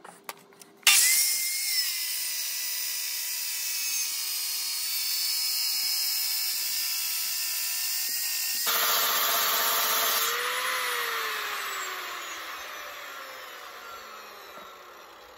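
Flex water-fed circular saw with a porcelain blade starting up about a second in and cutting a porcelain coping tile along a guide rail with a steady high whine. Near the end of the cut the sound changes, then the saw is switched off and the blade winds down, its pitch falling as it fades.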